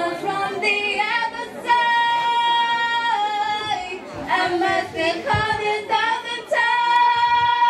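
Teenage girls singing a pop song a cappella into a microphone, holding long notes with short breaks between phrases.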